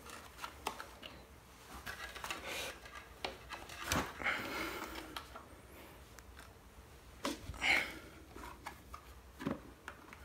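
Hands pressing a plastic hoverboard shell plate onto its frame, with scattered plastic clicks and knocks as the clips are pushed in; the louder ones come about four seconds in and just before eight seconds.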